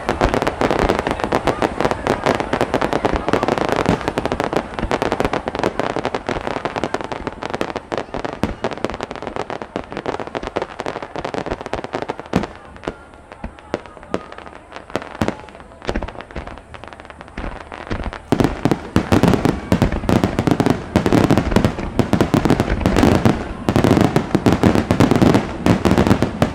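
Fireworks display in a rapid-fire barrage: dense bangs and crackling bursts, thinning out about halfway through, then building again to a dense run of heavy, deep booms near the end.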